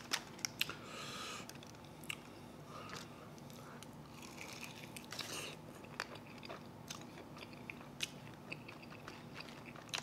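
Close-miked eating of chicken wings: wet chewing and mouth clicks scattered throughout, with a couple of brief noisy swishes about a second in and again around five seconds.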